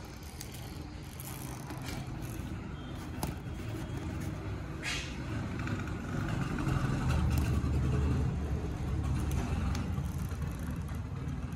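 A motor vehicle running close by, a low rumble that swells in the middle and eases off toward the end, with a few light clicks of plastic toy train track pieces being handled and fitted together.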